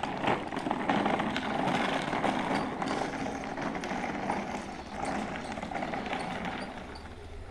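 Continuous crunching and rattling of hard plastic wheels rolling over the gravel of a dirt lane as a child pushes a small ride-on toy along with his feet.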